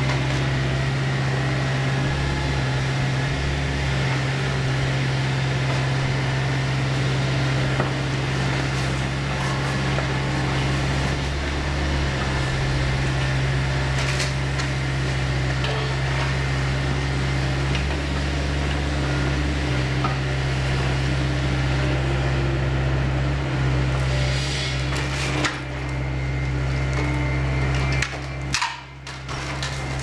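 KATO hydraulic excavator's diesel engine running with a steady low hum while its demolition attachment crunches and splinters the wooden structure of a building, with a dense crackle of breaking wood and a few sharper cracks. Near the end the engine hum dips and the sound breaks into scattered knocks.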